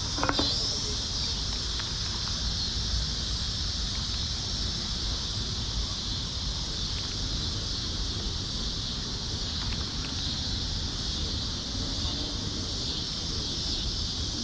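Steady high-pitched buzzing of insects, with a low rumble underneath and a short click right at the start.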